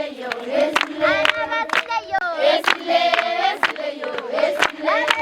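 A group of girls singing together in chorus, with sharp hand claps keeping a steady beat of about three a second.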